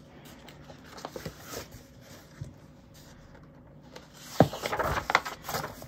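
Paperback colouring book being opened and its paper pages leafed through: light rustles and soft clicks, then a louder stretch of page rustling with a few sharp flicks about four seconds in.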